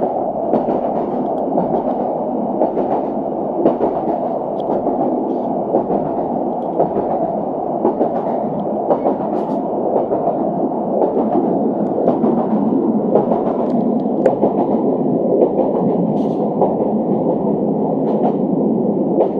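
Passenger train in motion, heard from inside the carriage: a steady rolling noise with irregular clicks and knocks from the wheels and running gear.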